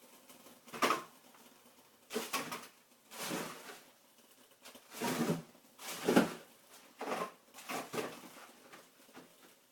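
Irregular, short knocking and rustling bursts from inside a freezer, about eight in a row at uneven intervals. The noise stops once bags inside the freezer are moved, so it comes from the bags being disturbed.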